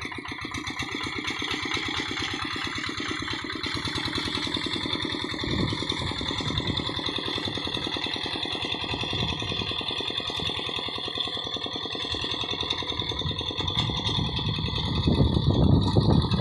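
Single-cylinder Kubota diesel of a Quick G1000 hand tractor running steadily with a rapid, even firing beat, working a wet rice field; it grows louder near the end.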